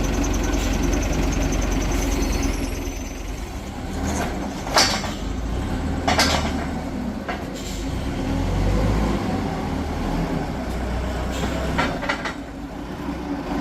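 Diesel engine of a heavy construction machine running steadily, with several short sharp hissing or clanking sounds from the working machine about four, six, seven and twelve seconds in.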